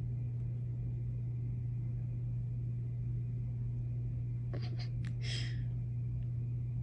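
A steady low hum runs throughout, with a few soft clicks and a brief rustle about five seconds in.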